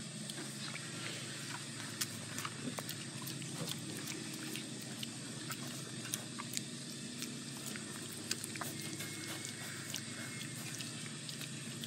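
Ten-day-old piglets snuffling and grunting at close range, with scattered sharp clicks and rustles as they nose about.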